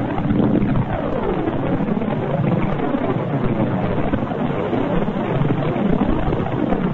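Space sound recording presented as the sound of Saturn's rings: a continuous, dense rushing drone woven with many overlapping tones that sweep up and down in pitch.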